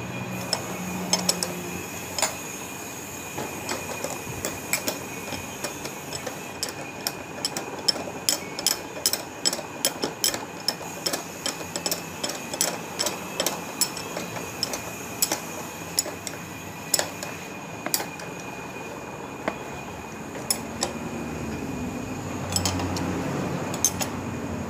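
Spanner clicking and clinking on the handlebar bridge plate bolts as they are tightened, in irregular runs of sharp clicks, sometimes several a second.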